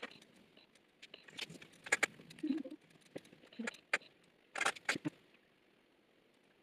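A few faint, scattered clicks and knocks, like small objects being handled, with quiet stretches in between.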